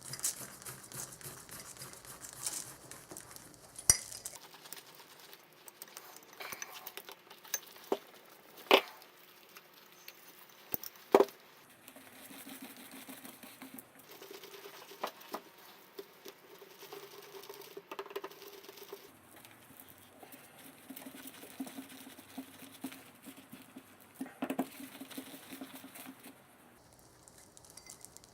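Small metal parts and tools being handled on a workbench: scattered clinks and taps, with a few sharp knocks about 4, 9 and 11 seconds in.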